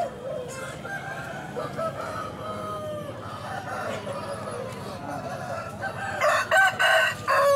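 Roosters crowing and clucking, with one loud, close crow in several parts near the end.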